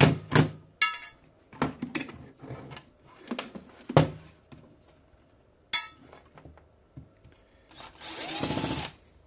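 Cordless drill-driver unscrewing the screws of an old CB radio's casing, running in short spurts with the longest, about a second, near the end. Clicks and knocks from the bit and the case being handled come in between.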